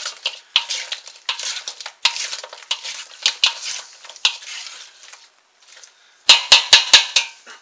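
A spoon scraping and stirring sauce in a bowl over chicken wings, in irregular wet strokes. About a second and a half before the end, a quick run of six or so sharp clinks of the spoon against the bowl.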